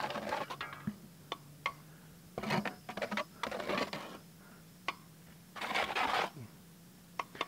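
Wet Poly-bond and sand patching mix being scraped out of a plastic bucket: several short scraping strokes with pauses between them, and a few sharp ticks.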